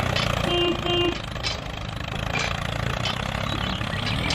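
Tractor engine running with a steady low chug, with two short beeps about half a second in.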